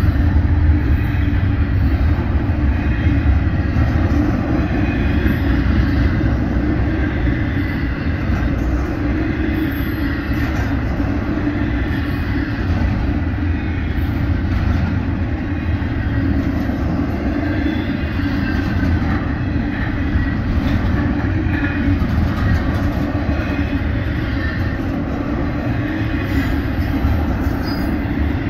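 Double-stack intermodal container cars of a freight train rolling past steadily: a constant rumble of steel wheels on rail.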